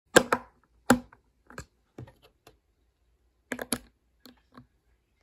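Hard plastic clicks and taps as a Lego minifigure is handled and pressed onto a baseplate's studs. Two sharp clicks come near the start, then a few softer taps, then a quick cluster of clicks about three and a half seconds in.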